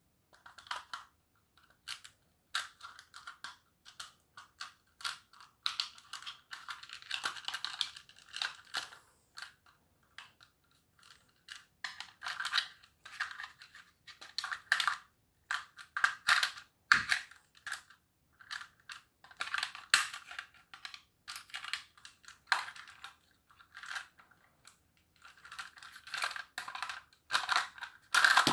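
Flat-blade screwdriver prying at the plastic housing of a Noark fuse disconnector: irregular clicks, creaks and scrapes of the steel tip working the plastic halves apart.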